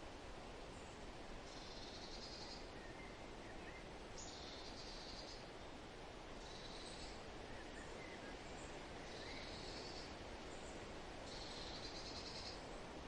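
Forest birds singing over a steady rustle of wind: one bird repeats a high song phrase about a second long every two to three seconds, with a few fainter short chirps lower in pitch in between.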